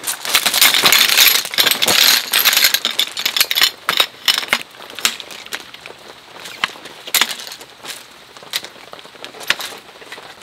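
Shock-corded aluminium poles of a folding camp chair frame being unfolded and snapped together: a busy clatter of light metallic clicks and clinks for the first few seconds, then single sharp clicks every half second to a second as the remaining joints seat.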